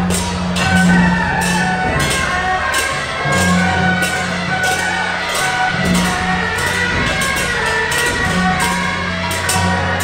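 Temple procession music: loud percussion struck about three times a second, with a high melody line over steady low tones underneath.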